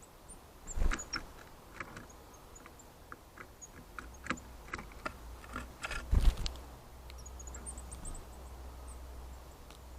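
Great tit pecking and tapping at a trail camera close to its microphone: scattered sharp taps, with two heavier knocks about a second in and about six seconds in. Faint, very high thin bird calls come and go.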